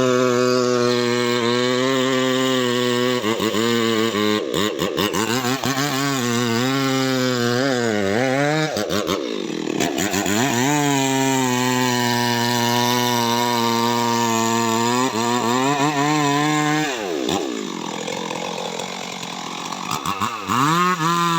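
Stihl MS 382 two-stroke chainsaw running at high revs while cutting teak wood. The revs drop and pick up again several times, with a longer slowdown near the end before it revs back up.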